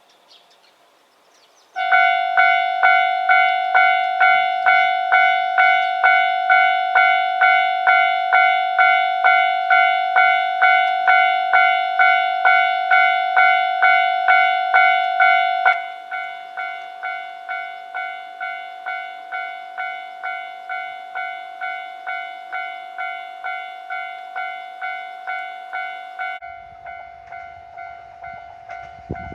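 Japanese railway level-crossing alarm ringing: a steady-pitched ding repeating about twice a second. It starts about two seconds in and drops to a quieter level about halfway through. Near the end a low rumble comes in as the KiHa 122 diesel railcar train approaches.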